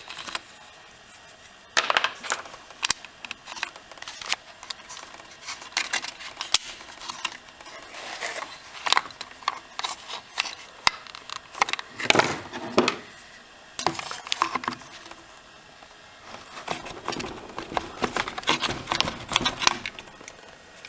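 Old fuel lines being pulled out of a Poulan chainsaw's plastic housing by hand: irregular clicks, taps and rustles of small plastic parts and tubing being handled, with a few louder knocks, about two seconds in and again around twelve and fourteen seconds.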